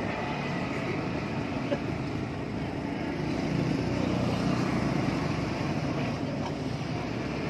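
An engine running steadily, a little louder from about halfway in.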